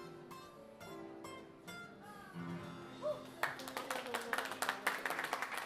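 Acoustic guitar picking the closing notes of a song, then, about three and a half seconds in, a small audience breaks into applause that is louder than the guitar.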